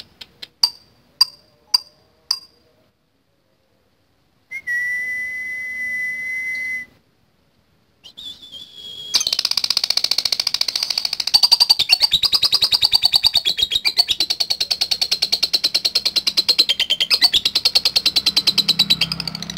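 Male lovebird's long, rapid chattering trill (ngekek), high chirps at about ten a second, starting about nine seconds in. Before it come a few single sharp chirps and a steady whistle-like tone.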